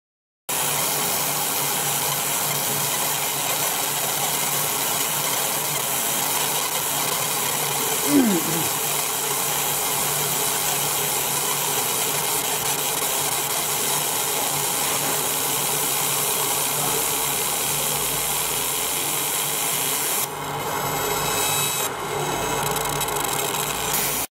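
Fiber laser marker deep-engraving a metal plate: a steady hissing buzz as the beam ablates the surface. A short falling squeak comes about eight seconds in, and the hiss thins slightly about twenty seconds in.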